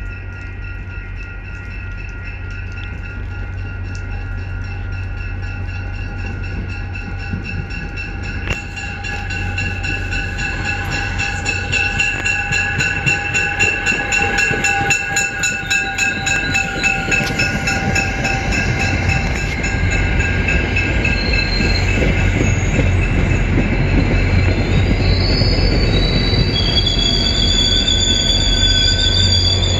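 MBTA diesel commuter train approaching and running past along the platform, its rumble growing louder as the coaches roll by. High-pitched wheel squeal from the coaches comes in during the second half.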